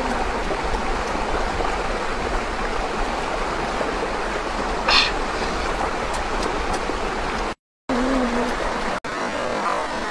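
Steady rush of a shallow stream running over rocks. A brief, higher sound stands out about halfway through, and the sound drops out for a moment near the end.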